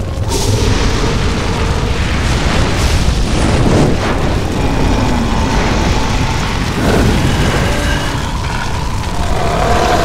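Designed film sound effects for a magical fire spell: a continuous deep rumble of fire with booms, and a few sweeping whooshes over it.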